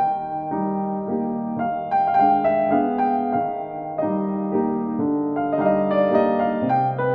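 Background piano music: chords and melody notes changing every half second or so.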